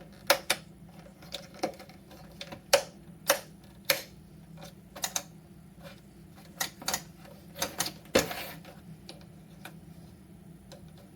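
A string of irregular sharp clicks and taps, some in quick pairs, over a faint steady low hum.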